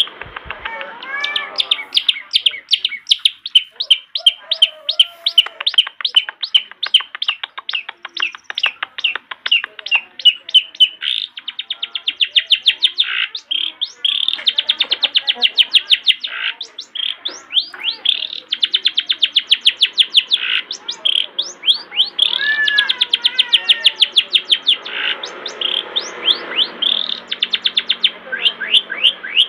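Long-tailed shrike singing continuously: rapid strings of short repeated notes, broken by gliding whistled phrases.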